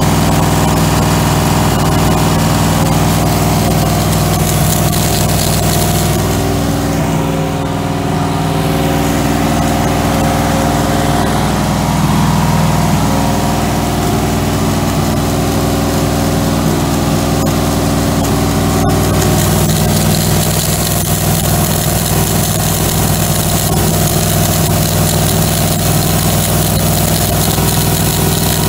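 1963 Oldsmobile Jetfire's turbocharged aluminum V8 running steadily at a fast idle during cam break-in.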